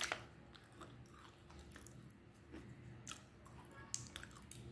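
A person chewing a mouthful of dry, crunchy edible clay: faint chewing, with a few sharper crunches in the second half. The crunch is the sign that the clay is dry and has not taken up moisture.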